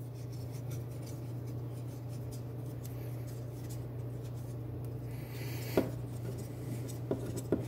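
Light handling sounds of a knife blade being seated and pinched in the DMT Aligner's small metal clamp: faint rubs and ticks, with one sharper click a little before six seconds. A steady low hum runs underneath.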